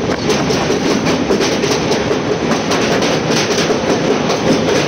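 Moving passenger train heard from inside a sleeper-class coach: a loud, steady rumble with frequent clicks of the wheels over the rail joints.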